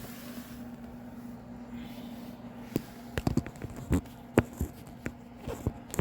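A run of sharp clicks and knocks from hands working parts loose around a car's headlight and wheel-well liner, starting about three seconds in, over a steady low hum.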